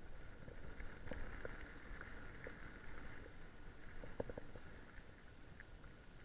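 Mountain bike rolling over a rough dirt and gravel track, with a low wind rumble on the bike-mounted camera's microphone. Scattered rattles and knocks come from the bike over bumps, a cluster of sharper knocks about four seconds in.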